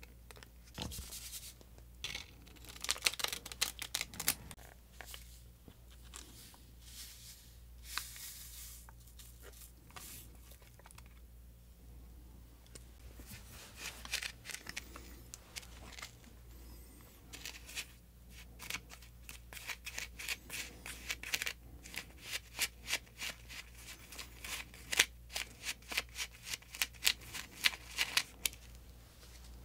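Close-up handling of a Popin Cookin DIY candy kit: crinkling and tearing of small paper powder packets. In the second half comes a quick run of light clicks and scrapes, about three a second, as the mix is worked in its small plastic cup.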